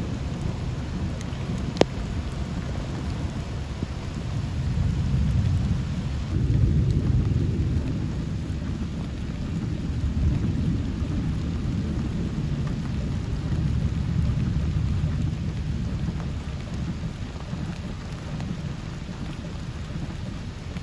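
Heavy rain falling, with a dense low rumble under it that grows louder about six seconds in. A single sharp click comes about two seconds in.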